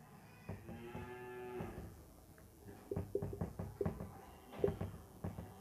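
Marker pen writing on a whiteboard: a run of short squeaking and tapping strokes from about three seconds in. Before that, a single held, pitched call lasting about a second.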